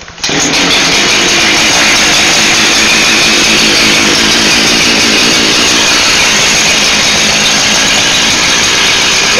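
Two-stroke chainsaw starting up about a quarter second in, then running loud and steady.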